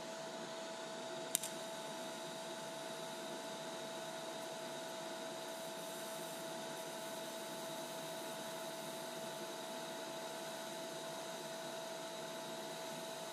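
Low-amperage DC TIG arc from a Lincoln Electric Aspect 230 inverter welder on thin stainless razor blades: a steady hiss with a steady whine over it. One sharp click about a second and a half in.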